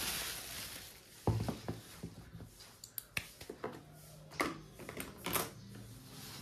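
Scattered light clicks and knocks, with a louder thump about a second in, over a faint low hum.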